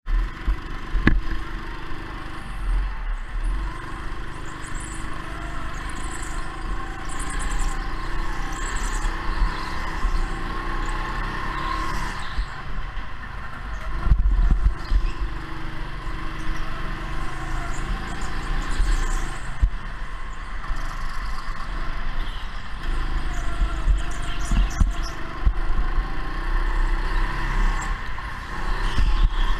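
Go-kart running on track: a steady motor whine that rises and falls a little with speed, heavy wind rumble on the microphone, and short high squeals and clatter now and then.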